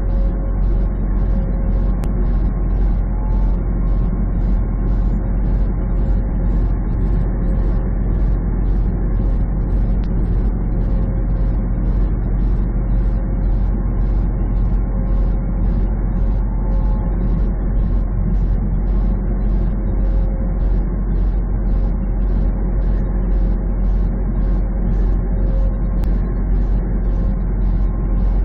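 Semi truck at highway speed heard from inside the cab: a steady low engine and road rumble with a thin steady whine, and a regular light ticking about twice a second.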